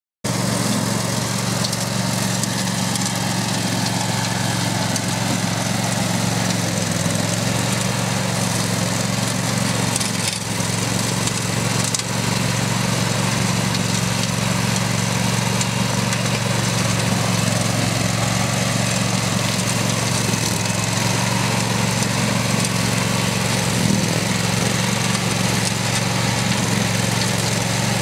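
Grillo Climber ride-on high-grass mower running steadily as it mows through tall dry grass and weeds, a constant engine hum with a noisy wash over it.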